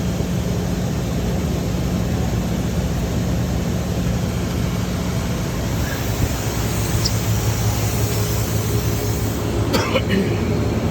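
Steady drone of running shop machinery, with a low hum that drops in pitch about six seconds in and a brief clatter near the end.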